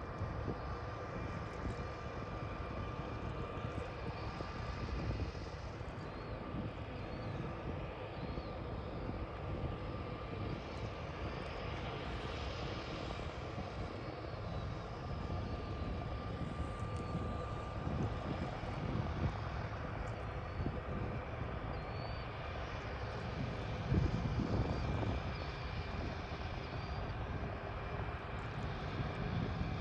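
De Havilland DHC-3 Otter floatplane's turbine engine and propeller running at steady taxi power on the water: a continuous rumble with a steady whine, swelling briefly about three-quarters of the way through.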